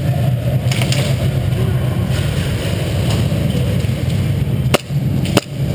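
Steady low rumble with two sharp airsoft gun shots near the end, a little over half a second apart.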